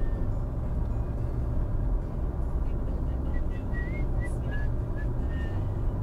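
Car driving at highway speed, a steady low rumble of engine and tyre noise heard inside the cabin, with a few faint short high chirps in the middle.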